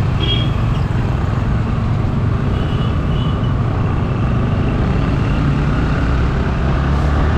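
Yamaha motorcycle engine running steadily while riding in city traffic, with a continuous rush of wind and road noise.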